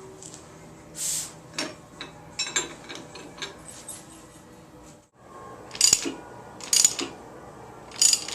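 Metal tools and parts clinking and rubbing while the crankshaft damper is fitted to a small-block Ford 302, then three sharp metallic knocks about a second apart.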